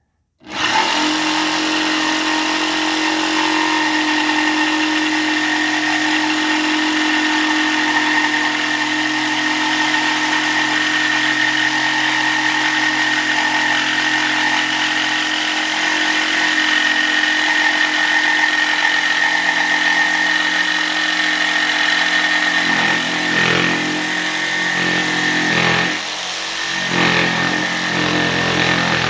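Electric jigsaw with a scroll blade cutting, starting abruptly about half a second in and running at a steady whine. Near the end its pitch and load waver as the cut goes on.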